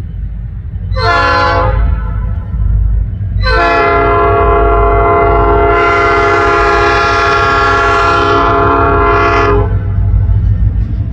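Diesel locomotive air horn sounding several notes at once: one short blast, then one long blast of about six seconds, over a steady low rumble.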